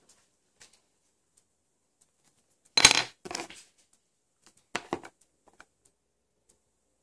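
Handling noises of small craft tools on a desk: a sharp clack about three seconds in, a shorter rattle just after, and two lighter knocks near five seconds, with faint ticks between.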